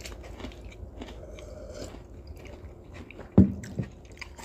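Close-miked chewing and mouth noises from eating a snack. Two sharp, loud sounds come a little over three seconds in.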